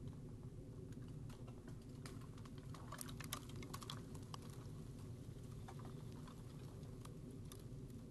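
A dog gnawing and chewing at a slab of raw meat and bone, making irregular crunching clicks that come thickest a few seconds in, over a steady low hum.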